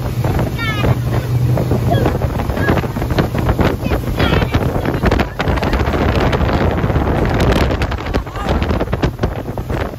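Speedboat running at speed: a steady engine hum under loud wind buffeting the microphone and rushing water from the wake.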